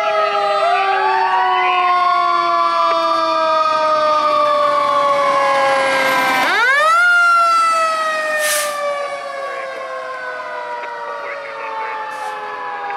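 Fire engine siren on a 2024 Pierce Enforcer pumper, wailing as the truck responds. One tone winds up in the first second while another slowly falls, then the pitch rises sharply about six and a half seconds in and slides slowly down for the rest. A short hiss comes about eight and a half seconds in.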